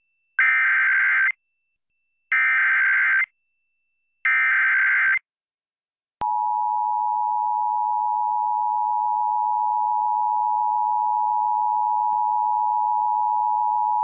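Emergency Alert System SAME header: three identical one-second bursts of warbling digital data tones, about two seconds apart. About six seconds in, the steady EAS attention tone begins and holds, signalling the start of an AMBER child-abduction alert.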